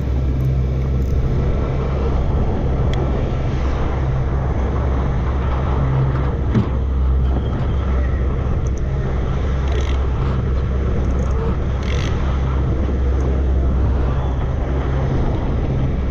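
Fishing boat's engine running steadily with a low hum, under a constant rushing noise; a single short knock about six and a half seconds in.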